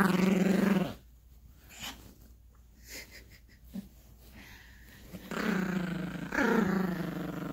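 Yorkshire terrier puppy play-growling over a plush toy. A long growl stops about a second in, and after a quiet pause a second growl starts about five seconds in and runs on.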